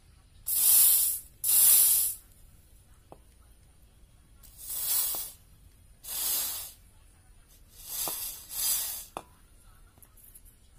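Aerosol carburettor cleaner hissing in six short bursts as it is sprayed through a motorcycle fuel injector wired to a battery. The cleaner spraying out of the injector's holes shows the injector is working. A few faint clicks come between the bursts.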